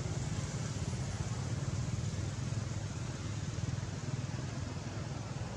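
An engine running steadily, a low rumble over a faint hiss.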